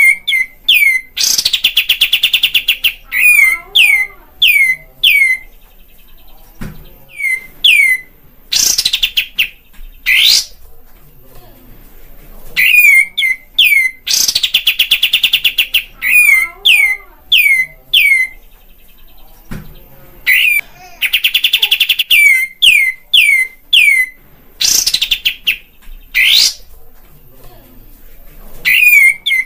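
Kapas tembak bulbul song: a loud rapid chattering burst followed by three or four sharp downward-sweeping whistled notes, the phrase repeating about every six seconds, with quieter calls between. It is a recorded lure song for provoking caged kapas tembak into singing.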